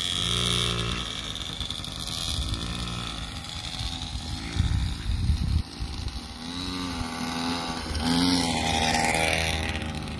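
Yamaha PW50 youth dirt bike's small two-stroke engine running at low speed, its revs rising and falling again and again as the throttle is opened and eased off. Brief low rumbles near the middle.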